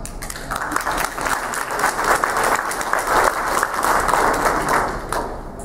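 Audience applauding: many people clapping at once, swelling over the first few seconds and dying away near the end.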